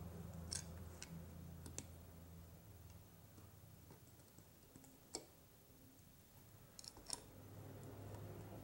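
Faint, scattered small clicks and taps from handling a plastic switch plate and foam gasket at a wall switch, over a low room hum.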